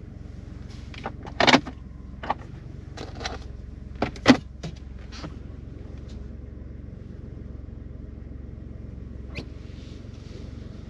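Ford F-150 pickup's engine idling, a steady low hum heard from inside the cab, with several sharp clicks and knocks, the loudest about one and a half and four seconds in.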